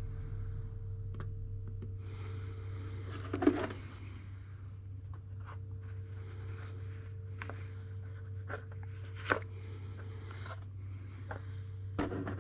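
Scattered light clicks, taps and knocks of hand work on a workbench over a steady low hum, the sharpest knock about three and a half seconds in and a short cluster of knocks near the end.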